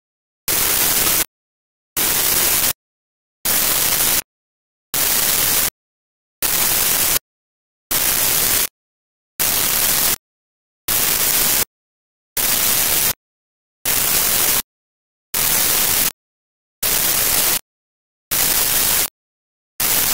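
Loud static-like hiss switching sharply on and off in a steady pulse: about three quarters of a second of noise, then a short dead silence, about two bursts every three seconds.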